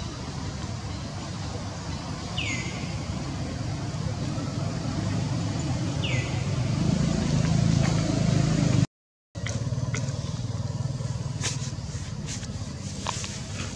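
Low rumble of a distant motor vehicle that swells over about eight seconds, with two short downward-sliding bird whistles in the first half. The sound drops out for a moment about nine seconds in, then a few faint clicks follow.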